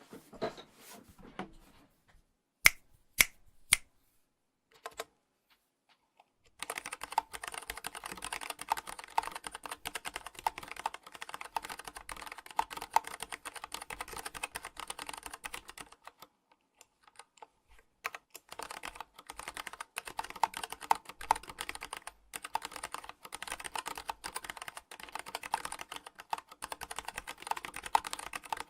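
Nightfox aluminium-cased mechanical keyboard with tactile Kailh Box Heavy Burnt Orange switches and DSA keycaps being typed on, the keys bottoming out against the case. A few separate sharp keystrokes come first, then fast continuous typing that stops briefly about halfway through and resumes.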